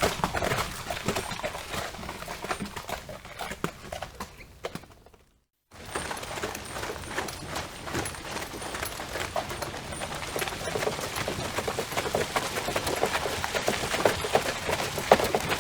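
Horse hooves clip-clopping: a run of many hoof strikes that fades out about five seconds in, a short break of silence, then another run of hoofbeats that slowly grows louder.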